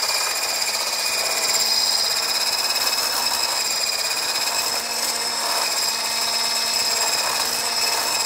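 Hand-held immersion blender with a whisk attachment running steadily at one speed, whipping egg whites in a tall beaker until they stand stiff. A steady high motor whine with a whirring underneath.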